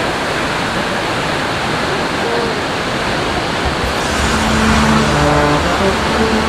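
Steady rushing roar of a large waterfall, with held musical notes coming in over it about four seconds in.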